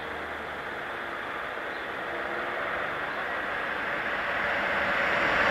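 A train approaching on the main line, its running noise growing steadily louder.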